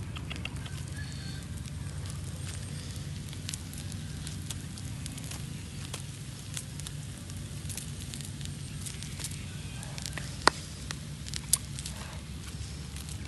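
Charcoal fire crackling under skewered fish grilling over the coals, with scattered small pops over a steady low rumble and two sharp, louder snaps about ten and eleven seconds in.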